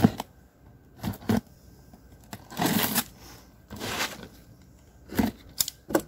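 Cardboard box being cut open with a box cutter: several short rasping strokes as the packing tape is slit, with knocks and scrapes as the box is handled and turned.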